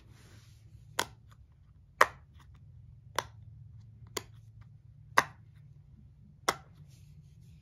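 Hard shell poppet fidget toy's bubbles being pressed, popping with sharp clicks, six times at roughly one-second intervals.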